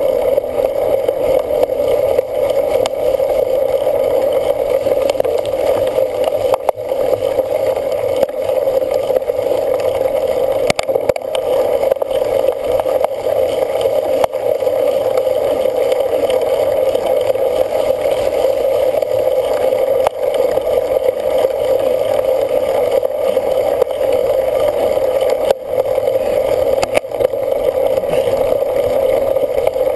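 Steady rush of wind and rolling noise from a cyclocross bike being ridden, picked up by a camera carried on the bike or rider. A few sharp knocks come through.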